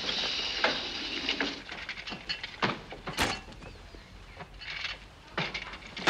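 Footsteps and a few scattered knocks and clicks, the sharpest knock about three seconds in.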